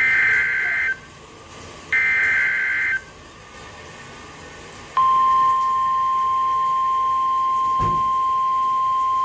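NOAA Weather Radio Emergency Alert System signal: the last two bursts of the SAME data header, a buzzy digital screech around 1.5–2 kHz, each about a second long with a second's gap. About five seconds in, the steady 1050 Hz warning alert tone starts and holds. This is the signal that a warning, here a tornado warning, is about to be read.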